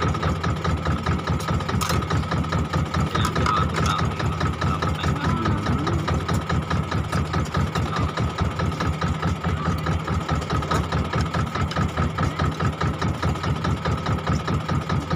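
Fishing boat's engine running steadily at idle, an even beat of about four pulses a second with a steady hum above it.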